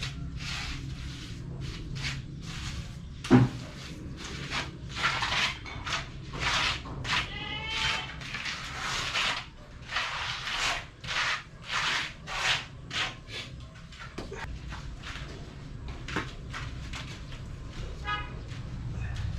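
Tools scraping and shovelling through wet concrete in repeated rough strokes, roughly one a second, with one loud knock about three seconds in.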